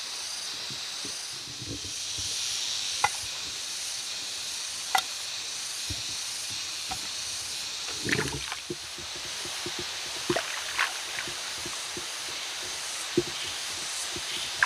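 Shallow stream water running steadily, with scattered small splashes and clicks from hands washing and cleaning fish in the water.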